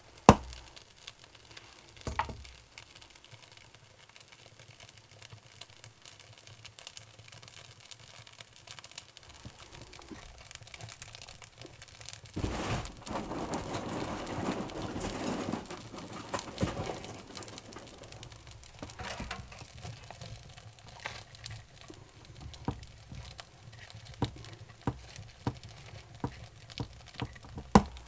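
Birch bark burning on a log in an open woodstove firebox, crackling and popping as it catches. A sharp click comes right at the start, a louder rustling crackle lasts several seconds about halfway through, and scattered sharp pops follow near the end.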